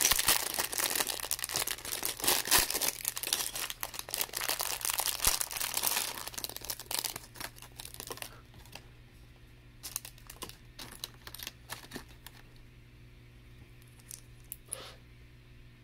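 Thin clear plastic parts bag crinkling loudly as it is torn open and worked with the fingers, for about eight seconds. After that, only sparse light rustles and small clicks as the LEGO bricks are spread out.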